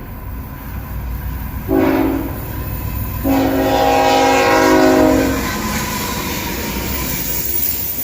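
Nathan K5HL five-chime air horn on a CSX locomotive, sounding a short blast about two seconds in and then a longer blast of about two seconds, over the low rumble of the train.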